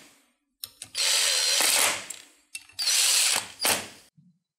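Electric impact gun run in three short bursts, the last two close together, spinning ring-gear bolts down into a differential case. It is set to a very low torque so it only snugs them up.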